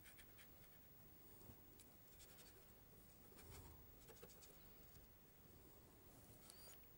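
Very faint scratching of a paintbrush worked over textured watercolour paper, with a few light ticks.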